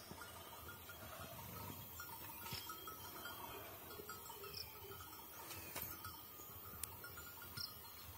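Quiet outdoor ambience among trees: a faint steady background with a few short high chirps and a couple of faint clicks.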